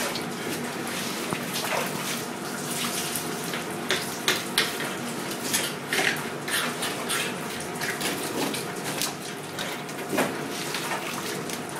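Steady hiss of running water, with frequent sharp knocks and clatter from a filleting knife and black flathead being handled on a plastic cutting board.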